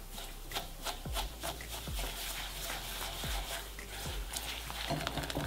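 Wire whisk beating eggs with sugar in a glass bowl by hand: the tines scrape through the mixture and clink against the glass in quick, uneven clicks, several a second.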